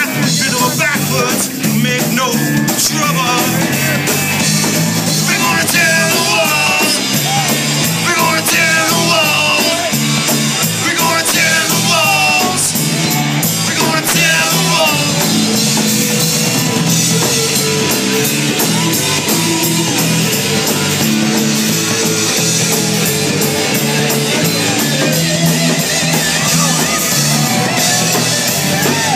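Rock band playing an instrumental stretch of a song: a steady beat and bass under a high lead melody of short, bending notes through the first half.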